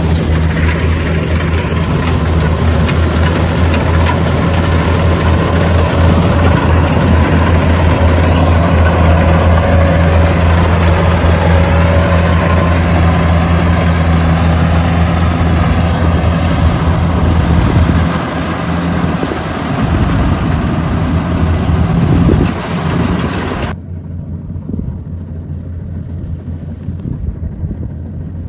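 Diesel engine and threshing works of a rice combine harvester running steadily at an even pitch as it cuts. Near the end the sound drops to a quieter, duller run.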